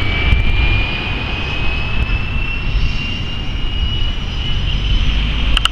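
Distant twin Williams FJ44 turbofans of a Cessna Citation CJ2+ business jet climbing away after takeoff: a steady low rumble with a thin whine slowly rising in pitch. A few clicks near the end.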